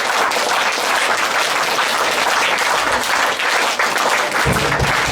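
Audience applauding steadily. Music with a drum beat comes in near the end.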